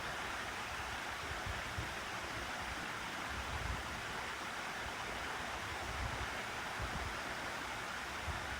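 Room fan running steadily: an even rush of air with an uneven low rumble underneath.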